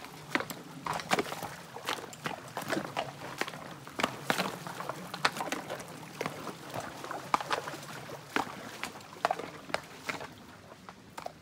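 Horse wading through a shallow creek: irregular splashes and knocks of hooves in water and on stones, several a second, thinning out near the end.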